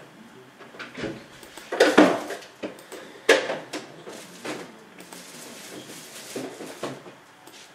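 A run of irregular knocks and clatters of household objects, the loudest about two seconds in and another sharp one just after three seconds.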